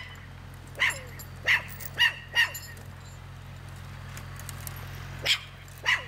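A dog barking: four sharp barks in the first few seconds, then a pause, then two more near the end.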